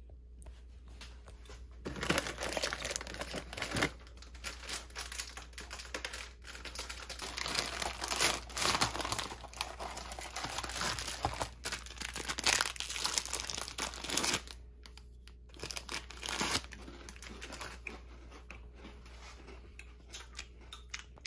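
Cookie packaging, a plastic bag and paper inner packet, being torn open and crinkled by hand. Dense, irregular crackling runs from about two seconds in to about fourteen seconds, then gives way to softer, scattered rustles with one more brief crinkle.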